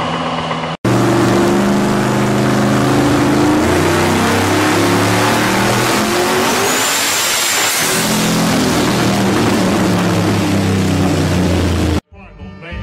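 A car engine during a burnout cuts off abruptly under a second in. It gives way to a twin-turbocharged car engine running hard at high revs on a chassis dynamometer, with a thin high whistle for about a second halfway through. The engine sound stops suddenly near the end.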